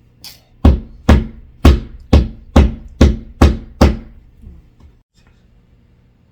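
Hammering: eight sharp blows in a steady rhythm, about two a second, then it stops.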